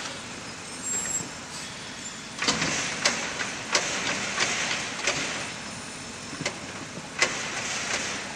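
Automated side-loader garbage truck lifting and emptying a trash cart with its arm. The truck runs steadily, and from about two and a half seconds in there is a run of sharp knocks and bangs as the cart is tipped and emptied into the hopper.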